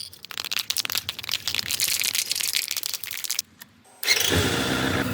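Chain lube being sprayed onto a motorcycle chain in short, irregular hissing spurts. After a brief silence, about four seconds in, the motorcycle's engine starts running steadily at idle.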